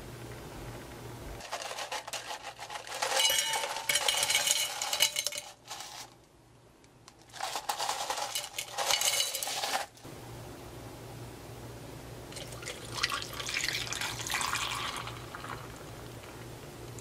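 Ice cubes clinking and clattering into a tall glass in two bursts, then a sparkling yogurt drink poured over the ice, near the end.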